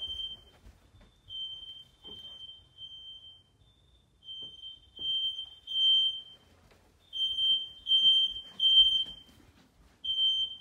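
Smoke alarm's piezo horn sounding in the temporal-three evacuation pattern: a single high-pitched beep three times, a pause, then three more, repeating. It is the downstairs alarm, set off through the interconnect by the smoke-tested units, whose own sounders stay silent.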